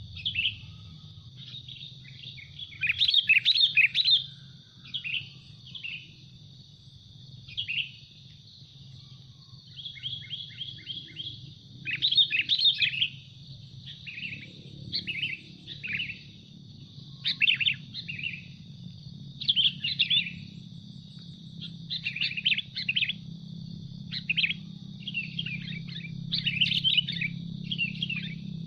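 Sooty-headed bulbuls calling in repeated short bursts of chattering chirps, one to two seconds apart: wild bulbuls worked up by a decoy bird.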